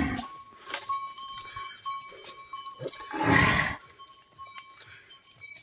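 Cattle walking on a forest path: one short call from an animal, a calf bleat or low, about three seconds in, over a faint steady ringing tone and a few light knocks.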